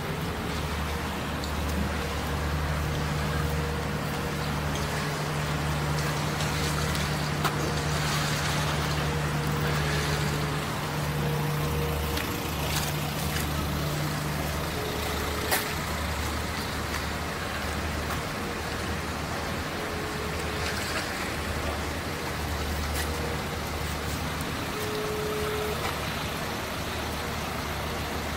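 Steady low engine hum with a humming tone that drops out about halfway through, over an even background noise, with a couple of faint short knocks.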